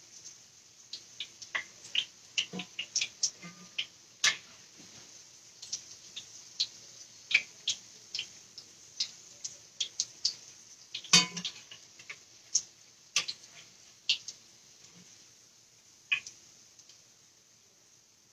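Hot oil in a skillet crackling and popping in irregular sharp ticks, several a second, as a salmon croquette fries. There is one louder click about eleven seconds in.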